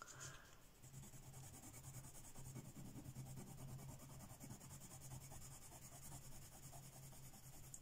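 Faint scratching of a white Derwent Lightfast coloured pencil shaded back and forth on black paper, with a low steady hum beneath.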